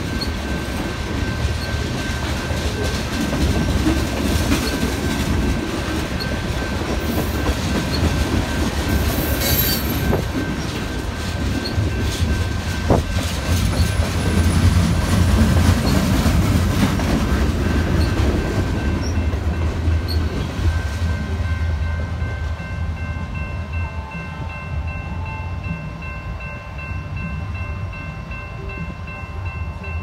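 Freight train tank cars and covered hopper cars rolling past: a steady rumble of steel wheels on rail with clicks over the joints and a thin, steady wheel squeal, easing off a little over the last third.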